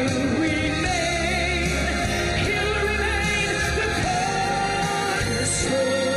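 Gospel song: a singing voice holding long, wavering notes over steady instrumental accompaniment.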